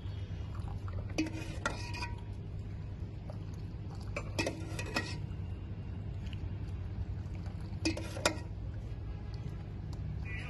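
Steel ladle scooping tea from a metal pot and clinking against it as the tea is poured through a strainer into bowls: three short clusters of ringing clinks a few seconds apart, over a steady low hum.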